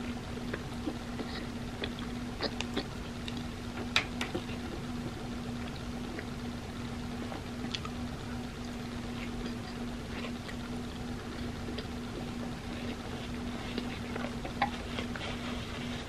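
Close-miked eating sounds: wet chewing and sticky mouth clicks as hotteok with ice cream is bitten and chewed, with scattered sharp clicks, the loudest about four seconds in. A steady low hum runs underneath.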